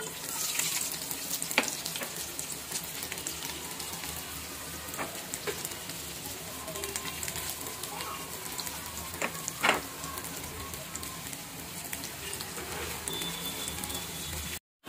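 Sliced onions and garlic hitting hot oil in a frying pan and sizzling steadily, with fine crackling throughout and a couple of sharper pops. The sound drops out for a moment near the end.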